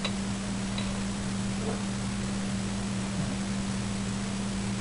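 Steady hiss with a low electrical hum underneath: the recording's background noise.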